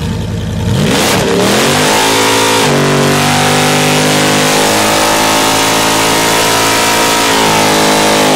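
Drag-strip engine revving up hard, dipping briefly about three seconds in, then held at steady high revs for several seconds with a loud hiss over it.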